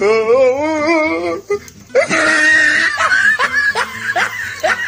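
Comic sound-effect audio laid over the scene: a warbling, wavering held note for about a second and a half. After a short gap comes a longer pitched sound that breaks into quick, short falling laughs, several a second.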